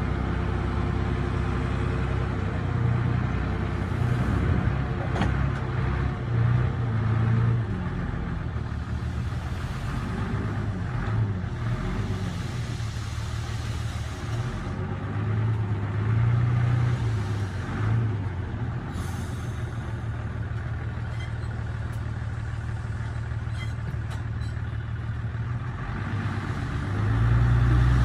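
Diesel engine of heavy earthmoving machinery running steadily, swelling louder several times as it is revved, most strongly near the end.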